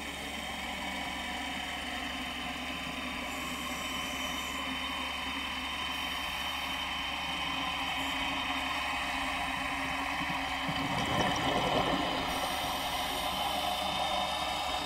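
Steady mechanical hum with several held tones, like an idling engine or motor. About eleven seconds in, a louder rushing noise swells for about a second.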